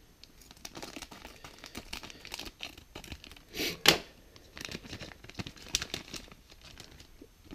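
Foil blind bag crinkling as it is snipped with scissors and pulled open by hand, with one louder burst of crackling a little before four seconds in.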